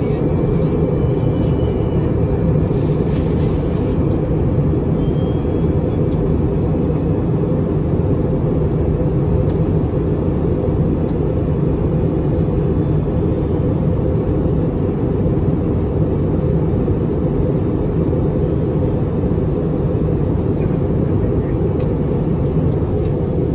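Steady in-flight cabin noise of an Airbus A321-231 airliner: an even, low-heavy rush of airflow and engine drone with no change in pitch or level.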